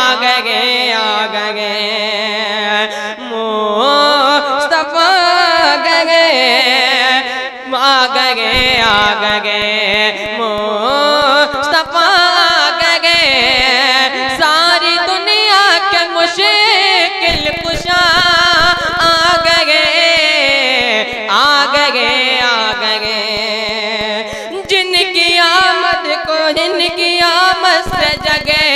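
A boy's voice singing a naat, an Urdu devotional song, into a microphone, in long drawn-out melodic phrases with a wavering, ornamented pitch and only brief breaks for breath.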